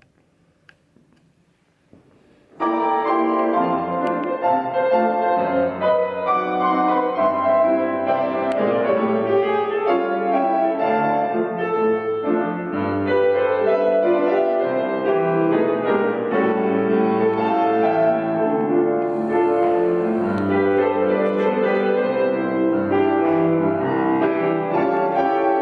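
Grand piano playing, starting suddenly about two and a half seconds in after near silence and then continuing steadily.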